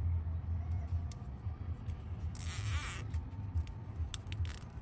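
Nylon zip tie being cinched tight through its ratchet: one short zipping rattle about halfway through, among small clicks of handling.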